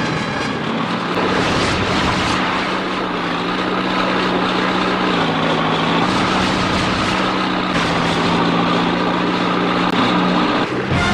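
Tractor engines running together in a steady, loud drone whose pitch steps slightly up and down, cutting off abruptly near the end.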